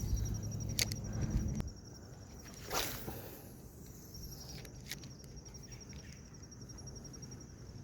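Crickets trilling steadily in a high, evenly pulsing chirr. About three seconds in comes a single swish that falls in pitch, like a fishing rod's cast, and there are a few sharp clicks.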